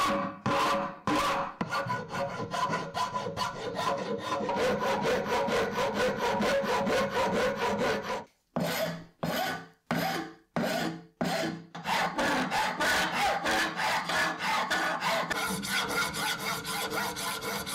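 Flat hand file rasping back and forth over a wooden cleaver handle and its brass end piece in quick, even strokes. About halfway through the strokes slow for a few seconds into single, separate passes, then speed up again.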